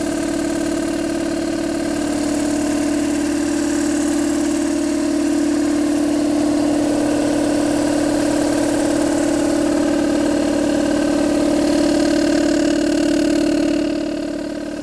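Speedair electric air compressor running, a steady hum with a strong even tone; it grows a little louder towards the end, then dips briefly just before the end.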